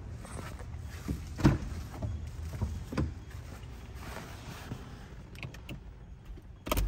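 Handling noise inside a car cabin: a low steady rumble with scattered knocks and thumps, the loudest about a second and a half in, and a short clatter near the end.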